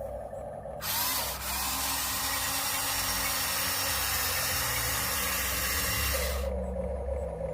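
Small electric motor and plastic gearbox of a toy remote-control crane running, starting about a second in and stopping about six seconds in, with a quieter hum before and after.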